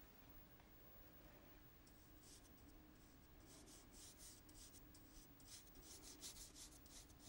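Faint, quick swishes of a paintbrush stroking wet paint across paper, in a run of short strokes that starts about two seconds in and comes thicker near the end.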